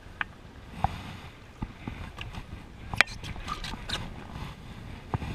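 Irregular knocks and clicks of paddles and gear bumping against an inflatable raft, loudest about three seconds in, over a low steady rush of river water.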